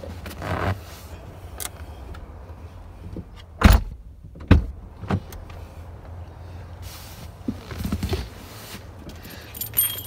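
Ford F-250 cab door shut and opened again: two heavy knocks under a second apart, about four seconds in. The door is cycled to wake the truck's system for remote-start programming.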